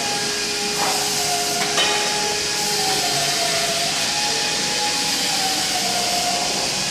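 A steady hiss with a faint wavering whistle running through it, and two light clicks about one and two seconds in.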